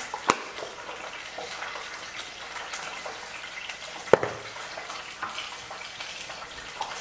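Hot oil frying in a pan, a steady sizzling hiss, with two sharp clicks, the louder about four seconds in.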